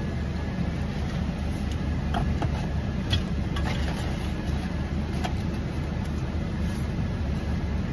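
Car engine idling steadily, heard from inside the cabin as an even low rumble. A few light clicks of a straw and a plastic cup being handled come over it.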